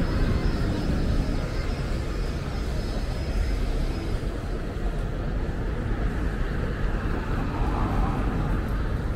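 Street traffic at a busy city intersection: cars driving past, a steady traffic noise with no single event standing out.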